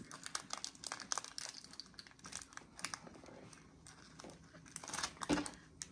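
Plastic packaging crinkling as it is handled, in quick irregular crackles, thickest in the first second or so and again about five seconds in.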